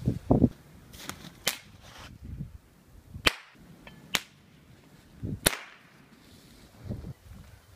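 Gunshots: about five sharp single cracks, irregularly spaced a second or two apart, following a heavy dull thump right at the start, with softer thuds between them.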